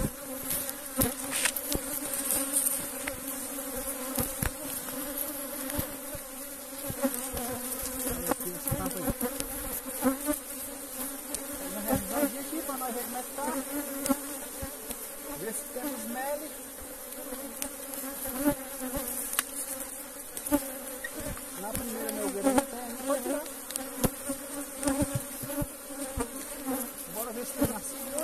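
Steady buzzing of a honeybee colony in a wooden hive box opened for inspection and being smoked, with scattered short clicks and knocks throughout.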